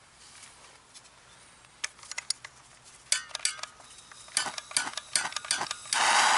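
Handheld gas torch: a series of sharp clicks as it is handled and triggered, then the flame lights about six seconds in with a sudden, loud, steady hiss.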